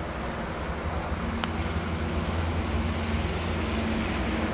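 2006 Kawasaki ZX-6R 636's inline-four engine idling steadily through a Laser aftermarket exhaust, a low even drone.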